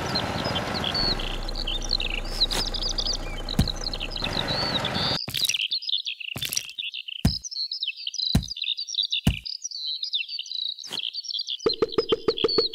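Small birds chirping and twittering throughout. A steady background haze lasts for the first few seconds. After it come several sharp clicks a second or so apart, and near the end a fast, even ticking starts.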